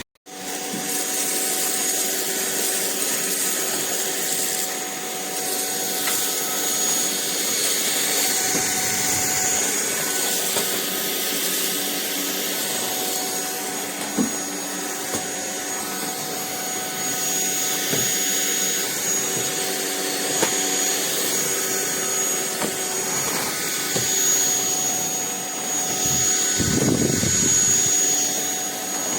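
Anyson cordless stick vacuum cleaner running steadily: an even motor whine with a high steady tone on top, with a few short clicks along the way.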